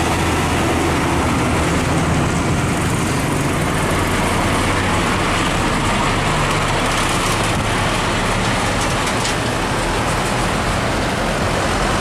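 Heavy diesel trucks, among them a Hino car-carrier truck, driving past close by: engines running with a low, steady rumble and tyre noise on the road.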